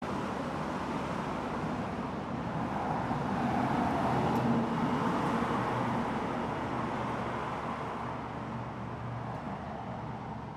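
A motor vehicle passing by, its engine and tyre noise swelling to a peak about four seconds in and then slowly fading away.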